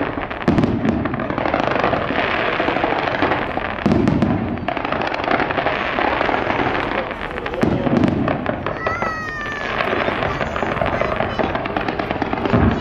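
Fireworks display: continuous dense crackling of bursting shells, with a deep boom about every four seconds.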